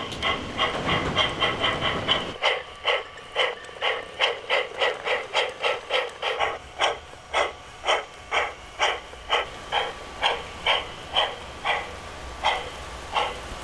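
A garden-scale model of the ÖBB 298.53 steam tank locomotive chuffing as it runs. The chuffs come quickly at first over a low track rumble. From about two seconds in they settle into a slower beat of about two a second, which slows further near the end.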